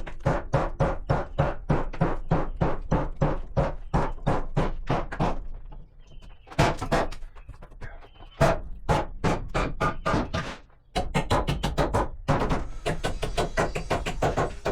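Background music with a steady, fast percussive beat of about three strokes a second. The beat thins out in the middle and picks up again near the end.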